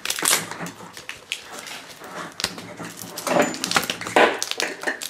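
Plastic Mashems blind-bag capsule being handled and twisted open: a run of small clicks and crinkles, with two louder sounds about three and four seconds in.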